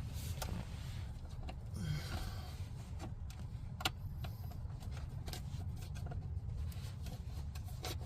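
Scattered light clicks and taps of plastic parts being handled and fitted by hand, with one sharper click a little under 4 s in, over a steady low hum.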